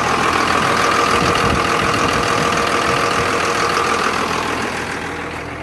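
Diesel bus engine idling steadily with the hood open, a continuous even running sound with a constant whine, warming up in the cold.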